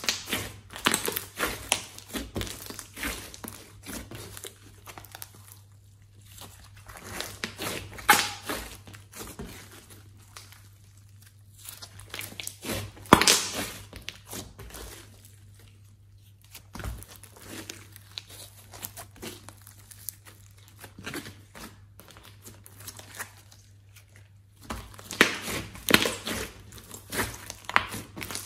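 Hands squeezing and kneading a large mass of glossy slime mixed with clay, giving irregular bursts of wet crackling and popping as trapped air is pressed out. There are quieter stretches between the squeezes.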